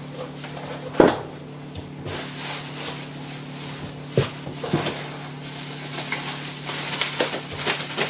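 Packaging being handled and unwrapped: a single knock about a second in, then rustling of wrapping with scattered small clicks and taps, over a low steady hum.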